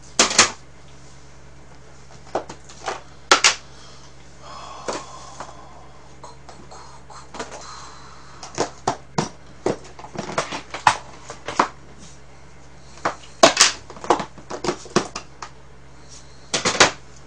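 Irregular clicks and knocks of plastic food containers and lids being picked up, opened and set down on a table among dishes, a few of them sharp and loud.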